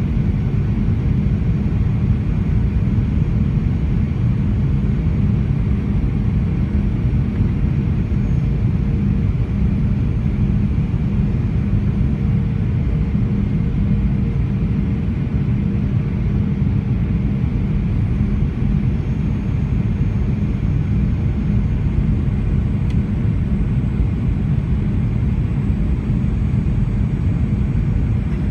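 Steady cabin noise of a Boeing 737-900ER in flight, heard from a window seat over the wing: the low rumble of the CFM56-7B engines and airflow, with a faint steady hum.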